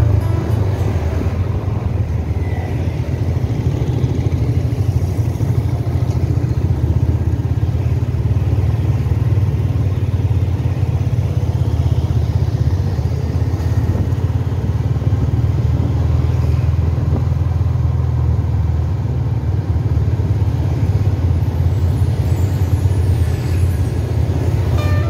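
Motorcycle running steadily at low speed through town traffic, heard from the rider's seat as a continuous low rumble, with other motorcycles and cars around it.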